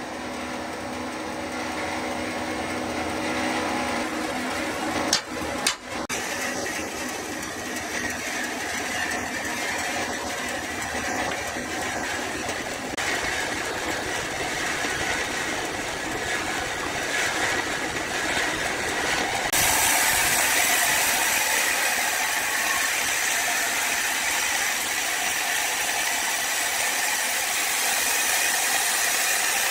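Woodworking machinery running with a steady mechanical noise, with two sharp knocks about five seconds in. About twenty seconds in, the sound turns louder and gains more hiss.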